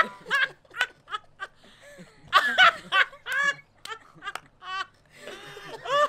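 A group of people laughing in bursts, with short pauses between the laughs. The loudest laughter comes right at the start and again a couple of seconds in.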